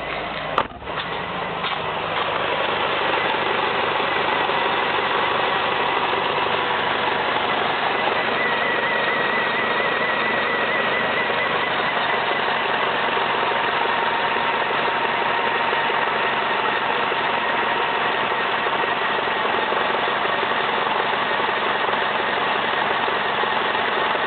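Nissan March K11's CG13DE four-cylinder engine idling with a steady abnormal noise, including a wavering high-pitched tone, which the owner attributes to the water pump. A sharp click comes about half a second in.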